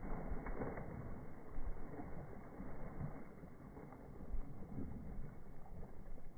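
A dog splashing and wading through shallow muddy water, with irregular splashes.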